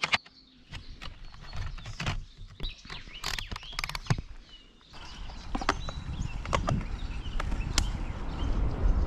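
Irregular sharp clicks and knocks, then a steady rushing noise from about five seconds in.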